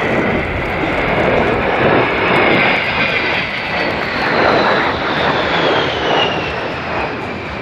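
The twin General Electric TF34 turbofan engines of an A-10 Thunderbolt II in a low pass: a steady jet roar with a high whine that slowly drops in pitch, easing off slightly near the end.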